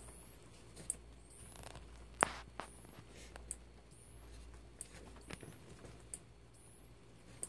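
Homemade psychedelic disco light running: a faint, very high whine rises in pitch again and again, about once every second and a quarter, with soft clicks and ticks between.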